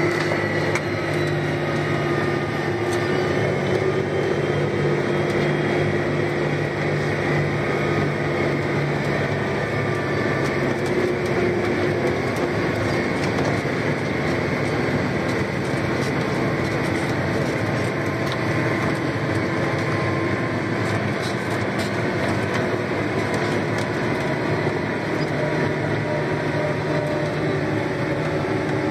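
John Deere 8530 tractor's six-cylinder diesel and drivetrain running steadily under way, heard from inside the cab: an even engine hum with a faint whine above it.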